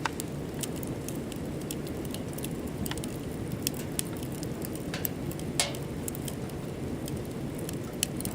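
Kettle boiling on a wood stove: a steady rumble of the water, with many sharp ticks and crackles scattered through it.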